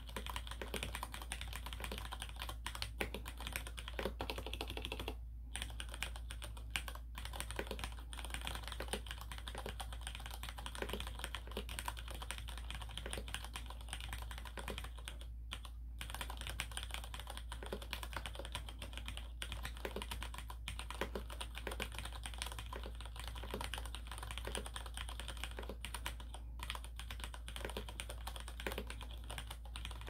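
Steady two-handed typing on a Cherry MX Board 2.0S mechanical keyboard with Cherry MX Red linear switches: a quick, continuous patter of keystrokes, broken by short pauses about five and fifteen seconds in.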